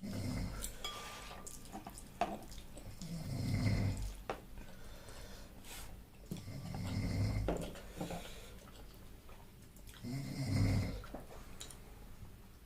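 Snoring: slow, regular snores about every three seconds, with scattered small clicks between them.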